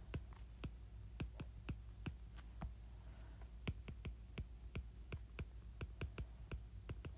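Stylus tip tapping and clicking on an iPad's glass screen during handwriting: short, sharp ticks about three a second, pausing briefly about three seconds in, over a faint low hum.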